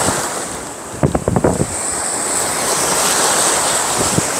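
Waves breaking and washing up a sandy beach, with wind buffeting the microphone. A quick cluster of short thumps comes about a second in.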